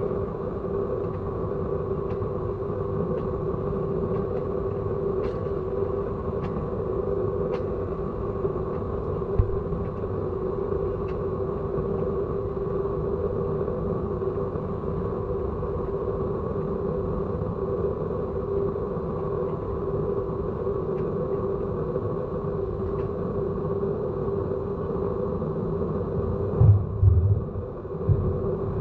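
Steady vehicle rumble with a constant drone, a few light clicks, and a couple of heavier thumps near the end.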